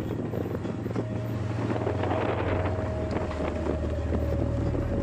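Mountain wind buffeting the microphone over a steady low drone, with a faint steady tone coming in about a second in and sinking slightly in pitch.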